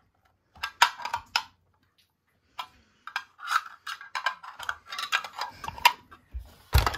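Hard plastic toy clicking and rattling as it is handled: a few sharp clicks in the first second or so, then a denser run of quick irregular clicks, with a louder knock near the end.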